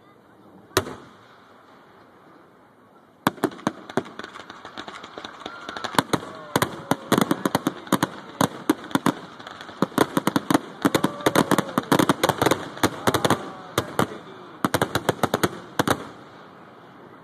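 Aerial fireworks exploding: a single bang about a second in, then from about three seconds a rapid barrage of bangs, several a second, that stops shortly before the end, typical of a finale.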